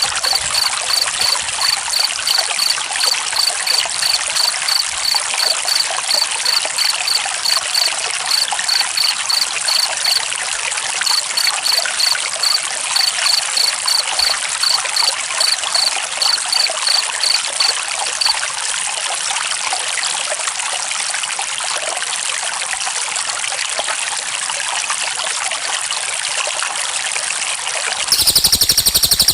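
Steady trickling, flowing water, with a cricket chirping about twice a second over it until about eighteen seconds in. Near the end, a louder, faster cricket trill starts.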